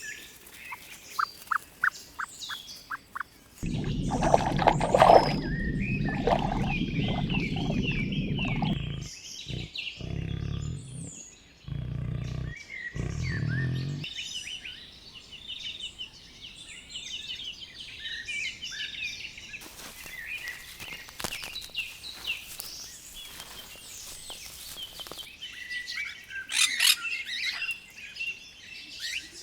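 Birds chirping and peeping with many short, high, repeated calls. A stretch of low rumbling noise runs under them from about four seconds in to about fourteen seconds, broken by short gaps.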